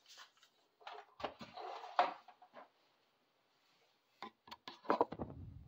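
Plastic clicks, knocks and brief scrapes from handling the removed fan and drain-pan assembly of a mini-split indoor head, with a low rumble joining near the end.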